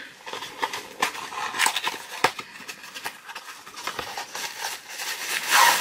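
A small black cardboard box being handled and opened by hand: scattered taps, scrapes and rustles of card and packing, with a louder rustle near the end.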